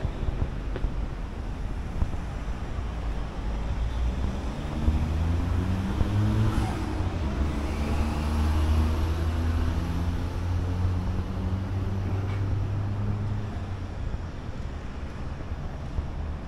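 Road traffic, with a motor vehicle's low engine hum building about four seconds in, running for about nine seconds, then fading.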